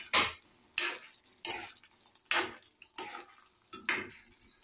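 Metal spoon stirring thick curry in a metal kadhai, scraping against the pan about six times, roughly one stroke every two-thirds of a second.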